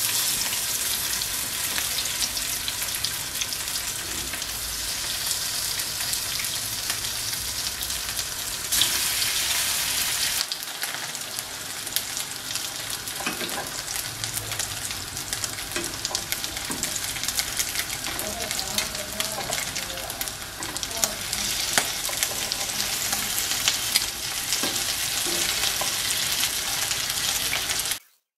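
Minced-meat kebab skewers frying in hot olive oil in a non-stick pan: a steady crackling sizzle with many small pops.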